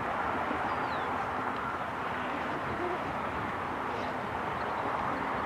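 Steady outdoor background noise with no distinct event, and a faint short falling chirp about a second in.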